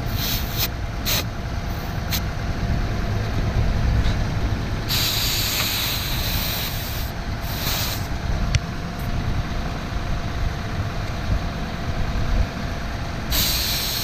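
Air hissing out of an over-inflated car tyre through a dial pressure gauge on the valve stem, letting it down from about 40 toward 36 PSI. There are a few short bursts, one longer release of about two seconds near the middle, and another short one near the end, over a steady low rumble.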